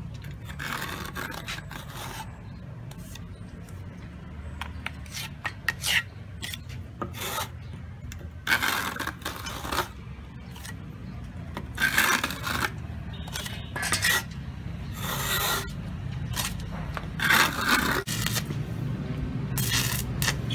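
A small steel trowel scraping and smoothing mortar on an autoclaved aerated concrete block, in short irregular strokes, over a steady low hum.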